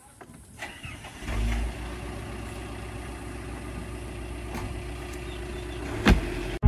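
A car engine starts just over a second in and settles into a steady idle. A single sharp knock comes near the end.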